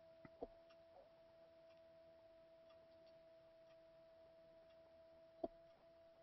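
Near silence on the webinar line: a faint steady electrical tone, with two soft clicks, one about half a second in and a sharper one near the end.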